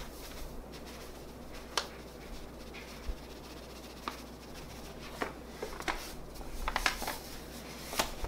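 Scattered light clicks and taps of a kitchen utensil against a pot, a cluster of them about two-thirds of the way through, while cornmeal is added to melted lard and bird seed.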